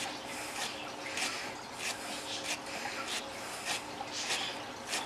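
A pointed hand tool twisted back and forth in a plastic tackle box lid, scraping a hole wider: short, regular rasping strokes, roughly one and a half to two a second.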